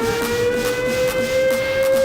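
Electronic dance music from a DJ set: a sustained synth tone glides slowly upward and levels off, over a steady beat of about four hits a second.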